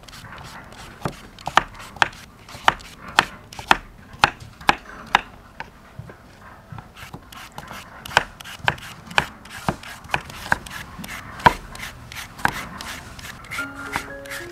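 Knife chopping peeled mango on a wooden chopping board: sharp knocks of the blade on the board, about two a second, with a short softer lull in the middle.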